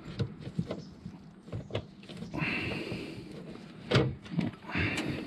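Screwdriver and bolt clicking and knocking against metal under the car as the torsion bar is levered down to let the bolt through, with a louder knock about four seconds in.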